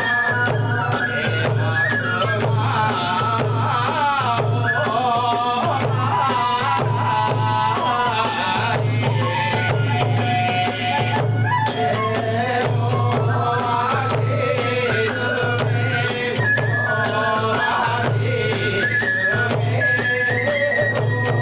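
Kagura hayashi music: a bamboo flute plays a sliding melody over a steady pulsing drum beat and a fast, continuous clash of small hand cymbals.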